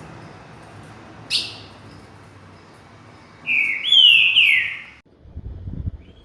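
Songbird singing: one short sharp chirp about a second in, then a loud phrase of three slurred, falling whistled notes that cuts off suddenly about five seconds in.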